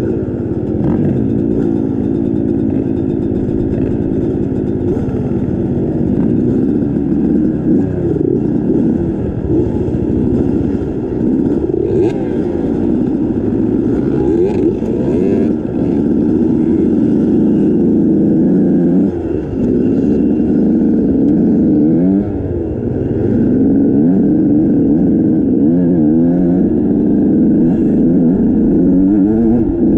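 Off-road motorcycle engine being ridden, its pitch rising and falling again and again as the throttle is opened and closed.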